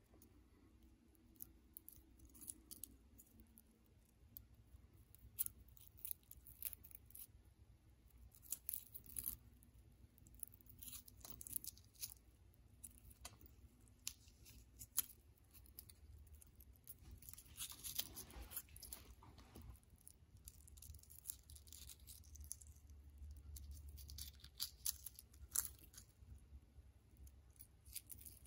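Hard-boiled egg shell being peeled by hand: faint, irregular crackles and clicks as the cracked shell breaks into flakes and pulls away.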